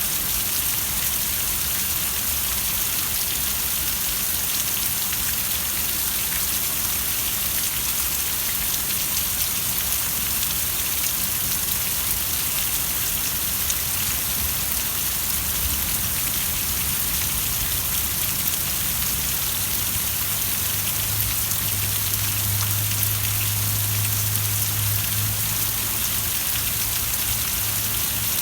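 Steady rain falling, a dense even hiss of drops hitting surfaces. A low steady hum comes in about two-thirds of the way through and stops shortly before the end.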